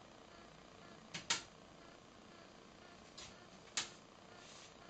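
Small disc magnets being set down on a leather desk pad: a few light clicks, a quick double click about a second in and a sharper single click near the end.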